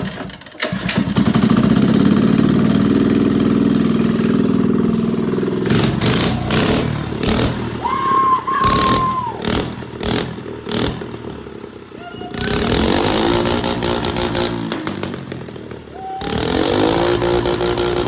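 Small mini bike engine running and being revved up and down, with quieter stretches in the middle. Those middle stretches hold several sharp clicks and a brief steady tone.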